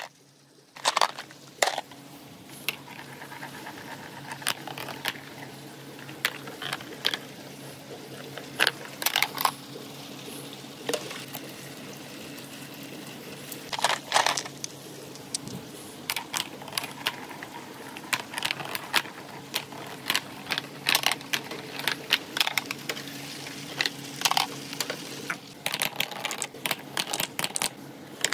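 Small billiard balls rolling and knocking along a plastic rain-gutter marble run with water flowing through it: irregular sharp clacks throughout, a louder flurry about halfway through, over a steady wash of running water.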